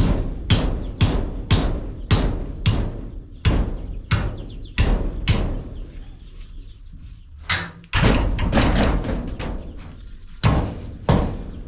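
Hammer striking nails into wood: a run of sharp knocks about two a second, a pause of a second or two just past the middle, then more blows.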